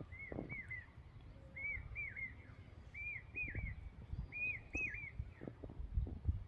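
A bird repeating a short phrase of about three quick whistled notes, five times, roughly once a second. Under it are irregular low thumps and rumble.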